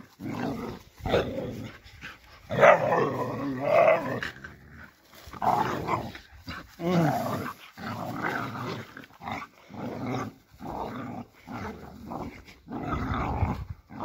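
Laika dogs growling at each other in play, in repeated short bouts.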